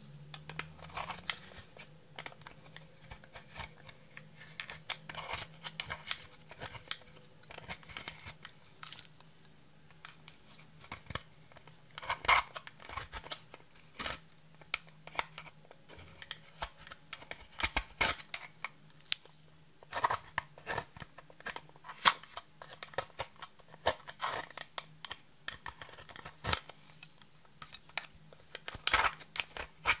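Yellow plastic spatula scraping and breaking up a pressed-powder highlighter in its plastic compact, with irregular scratchy clicks and crumbling as the powder comes apart.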